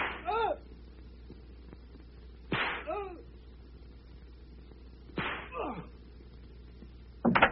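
A whip lashing a man being flogged: four sharp cracks about two and a half seconds apart, each of the first three followed by a short falling cry of pain.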